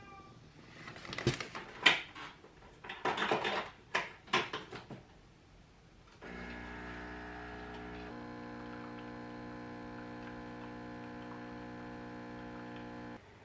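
Handling of a plastic cake tray and paper box: a few clicks and crinkles over the first five seconds. Then an illy capsule espresso machine's pump runs with a steady hum for about seven seconds while brewing, and cuts off suddenly near the end.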